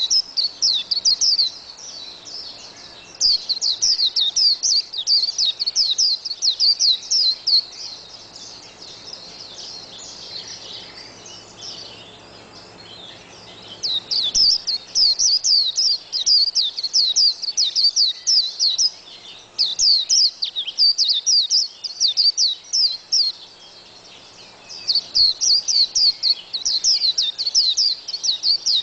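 White-eye (burung kacamata) singing: fast runs of high, thin, down-slurred notes in phrases several seconds long, separated by short stretches of softer twittering.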